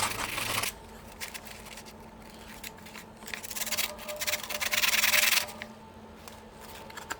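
150-grit aluminum oxide sandpaper rubbing quickly back and forth on a spark plug, cleaning off black carbon fouling. The scrubbing comes in two spells, briefly at the start and again for about two seconds in the middle, with quieter pauses between.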